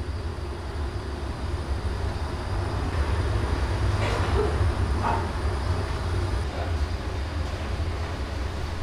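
Gas burner flames under the pot running with a steady low rumble, with a couple of faint short knocks about four and five seconds in.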